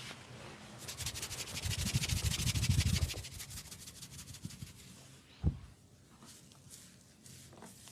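Hands rubbing vigorously over skin during a massage, a fast, even scrubbing for about two seconds, then softer rubbing. A single dull thump comes about five and a half seconds in.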